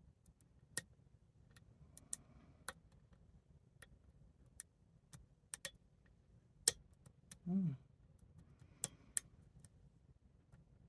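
Sharp, irregular clicks of a hook pick and tension wrench working the pins of a pin-tumbler padlock in an American 1100 body, about fifteen scattered clicks. A short low hum from the picker falls in pitch a little past the middle.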